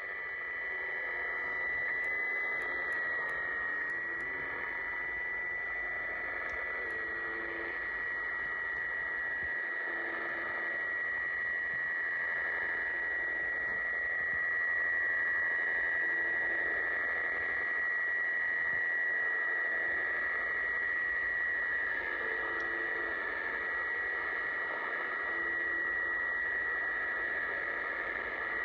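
Shortwave radio reception of UVB-76, 'The Buzzer', on 4625 kHz: static hiss with a steady high whistle, and faint, short low tones coming and going every few seconds.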